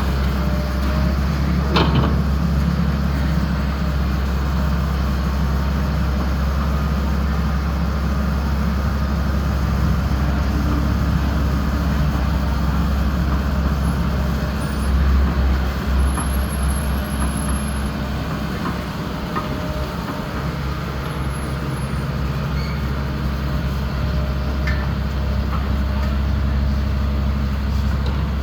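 Excavator's diesel engine running steadily at a constant speed, a low rumble, with one short click about two seconds in.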